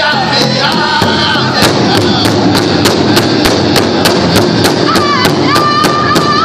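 Powwow drum group: several singers strike a large shared drum together in a fast, even beat while singing in unison, holding a long high note near the end.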